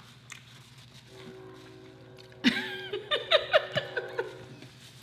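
A person's voice: a long held hum, then a run of short laughing sounds from about two and a half seconds in.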